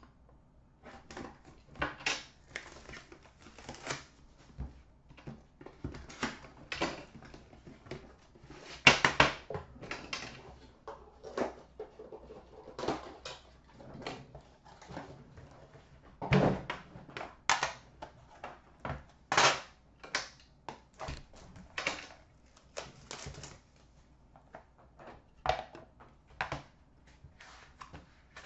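Irregular clicks, taps and rustles of a sealed trading-card tin being unwrapped and opened by hand: plastic wrap cut and stripped off, the tin handled on a glass counter and its lid taken off. A few louder knocks come along the way, the heaviest about halfway through.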